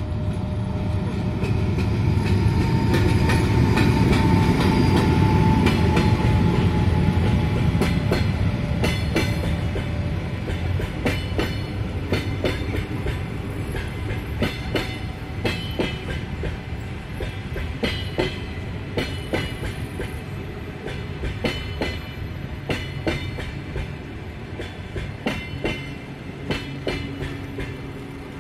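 EP1M AC electric locomotive hauling a passenger train past. As the locomotive goes by in the first several seconds there is a loud rumble with a slightly falling whine. Then the passenger coaches' wheels click over the rail joints, fading toward the end.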